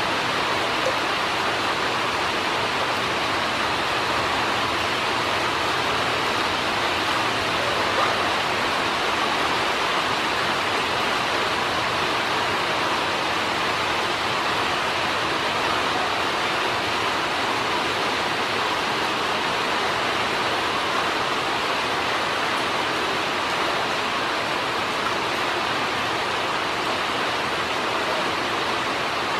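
A steady, even rushing hiss at a constant level, with no distinct events standing out.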